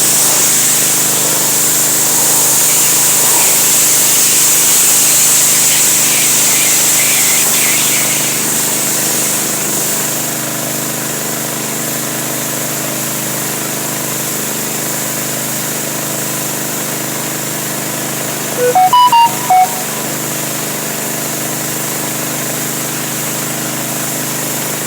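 A motor running steadily with a hum and a high hiss, the hiss easing off about a third of the way through. Around two thirds in, a short run of brief beeping tones stepping up and down in pitch.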